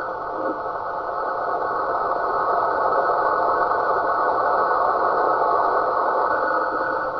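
Steady rushing noise from a radio receiver, held in a narrow mid-range band with a faint high tone above it, swelling slightly.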